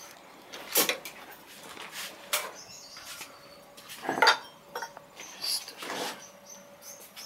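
Scattered knocks and light clatter from handling and moving about, four louder ones spread a second or two apart, the loudest about 4 seconds in.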